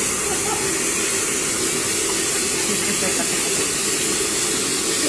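A steady, even hiss with a low hum underneath, holding the same level throughout.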